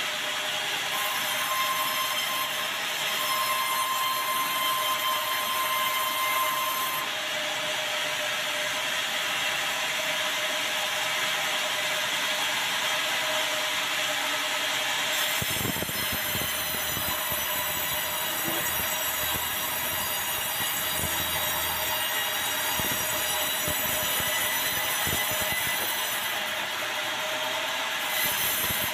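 Large band sawmill cutting a hard, dry bengkirai (yellow balau) log: a steady, high-pitched whine of the blade running through the wood. About halfway through, the whine changes pitch and irregular low knocks join in.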